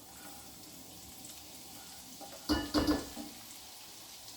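Chopped garlic sizzling steadily in hot oil in a pan, with a brief clatter of a utensil stirring against the pan about two and a half seconds in.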